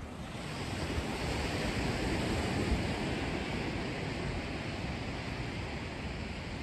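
Ocean surf washing onto a sandy beach, a steady rushing wash that swells a little after the first second, with wind buffeting the microphone.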